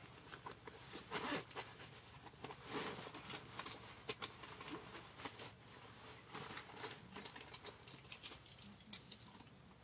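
Faint scattered clicks and rustling from hands handling a freshly caught walleye and the hook while unhooking it.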